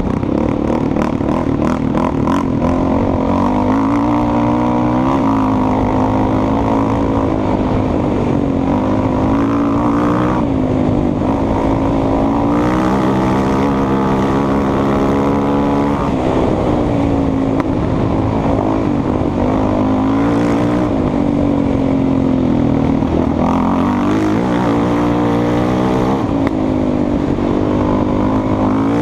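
Yamaha Raptor 700 sport quad's single-cylinder four-stroke engine running hard on a dirt trail. Its revs climb and drop again and again as the throttle is worked.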